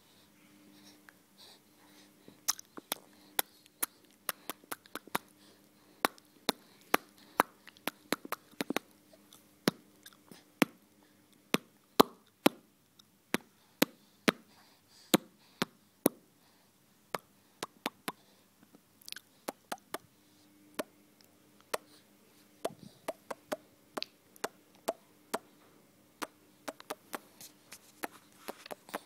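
Irregular series of small, sharp clicks, about one or two a second, thinning out for a few seconds a little past the middle, over a faint steady low hum.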